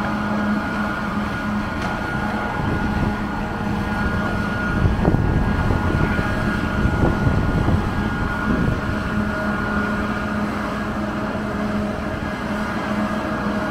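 Diesel engine of a high-reach demolition excavator running steadily with a constant hum, with a few dull thuds of debris around the middle.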